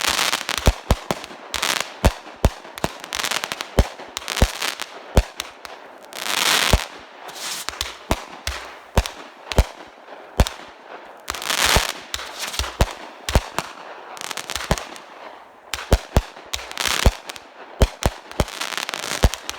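Consumer fireworks fused into one continuous chain, firing without pause: a rapid string of sharp bangs from launches and bursting shells, several a second. Longer noisy bursts come about every five seconds.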